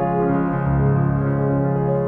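Instrumental background music with held notes that change pitch every so often.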